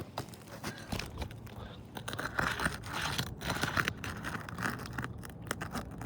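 Asphalt roof shingles being lifted and pried up by hand: a run of irregular gritty scrapes, crinkles and small clicks.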